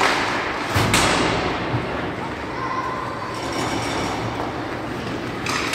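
Ice rink game sounds: a steady echoing din of voices, with a loud thud about a second in and a few lighter knocks of sticks and puck.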